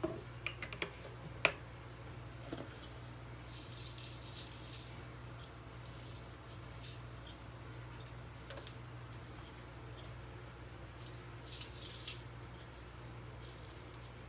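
Dried seasoning shaken from a spice jar over garlic bulbs on aluminium foil, in several short rattling bursts, after a few sharp clicks near the start.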